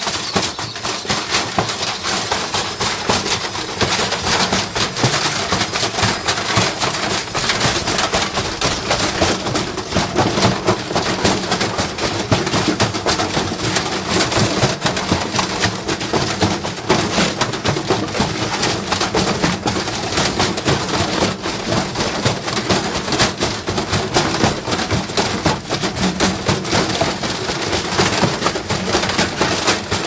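A wrecked front-loading washing machine running a spin with a brick loaded in its drum. The drum bangs and clatters continuously and rapidly, so far off balance that the machine shakes itself apart.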